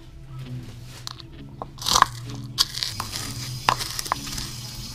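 Pestle pounding chopped red chili peppers in a mortar: a handful of separate, uneven strikes, the loudest about two seconds in.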